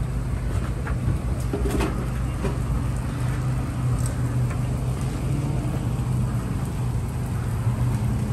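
Cakoi dough frying in a wide wok of hot oil: an even sizzle over a constant low hum, with a few light clicks in the first couple of seconds.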